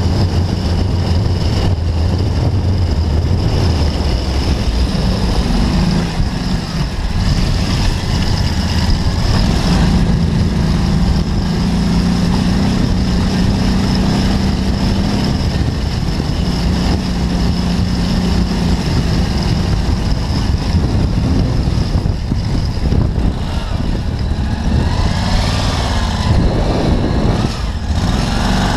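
Off-road dune buggy's engine running as it is driven over rough farm tracks and fields, its pitch stepping up and down with the throttle and rising and falling in quick revs near the end.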